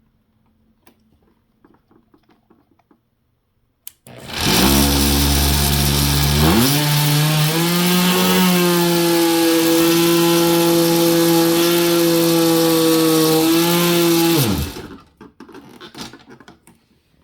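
Corded oscillating multi-tool starting about four seconds in and cutting for about ten seconds with a steady buzz. Its pitch rises shortly after it starts, holds, then winds down as it is switched off.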